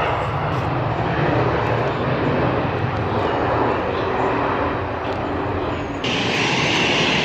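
Jet airliner's engines running with a steady hum and rush. About six seconds in the sound changes abruptly to a brighter hiss.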